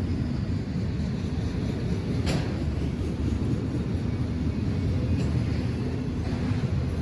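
Freight train rolling past with a steady low rumble, broken about two seconds in by a sharp click and a few fainter ones, like wheels striking rail joints.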